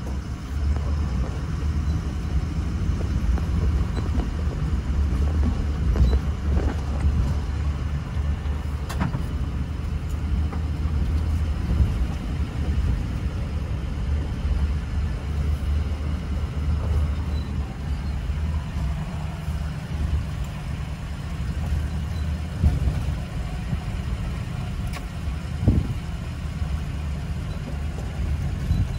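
Inside the cab of a 4x4 pickup crawling over a rough, rocky dirt track: a steady low rumble from the engine and the tyres on gravel and stones, broken by a few sharp knocks as the truck jolts over rocks.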